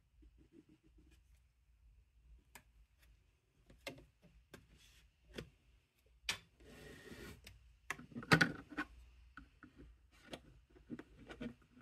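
Light clicks, taps and scrapes of a plastic ruler and a ballpoint pen against a small wooden box while a line is marked along its lid seam. About halfway there is a brief scratchy stretch, and the loudest knocks come just after it.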